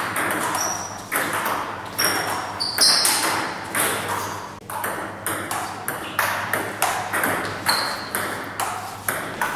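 Table tennis ball being played: a quick, irregular series of sharp clicks as the ball strikes the rubber bats and bounces on the table, some with a short high ping.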